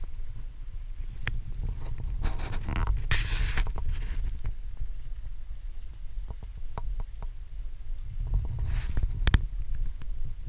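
Wind buffeting a deck-mounted microphone on a small sailboat under sail, a steady low rumble. Water rushes along the hull in a brief swell of hiss about three seconds in and again near nine seconds, with scattered small clicks and knocks from the boat's fittings.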